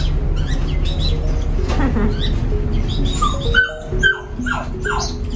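A dog whining in a run of short, falling yelps, about two or three a second, over a steady low rumble that drops away about three and a half seconds in.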